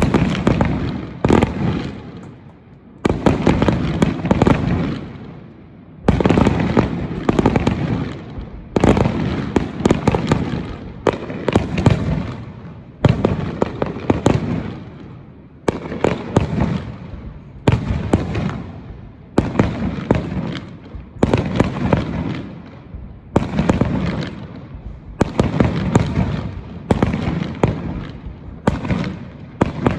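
Aerial firework shells bursting in a steady barrage, a sharp bang about every one and a half to two seconds, each trailing off into a low rumble before the next.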